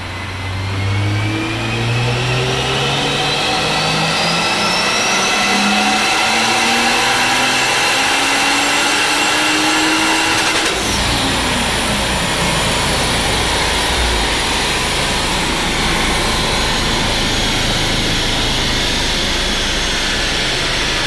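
Turbocharged 2JZ-GE inline-six in a Lexus IS300 making a full-throttle pull on a chassis dyno, its pitch climbing steadily for about ten seconds. The throttle then closes, the revs fall away, and a steady rushing noise carries on behind it.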